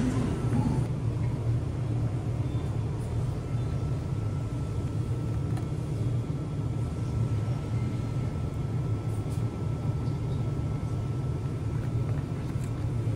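Steady low hum and rumble of a convenience store's refrigerated display cases and ventilation, with a faint steady high whine over it.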